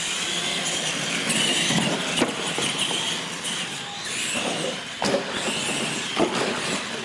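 Radio-controlled monster trucks racing: a steady whine from their motors and drivetrains mixed with tyre noise, and a few sharp thumps as the trucks hit and land off wooden jump ramps.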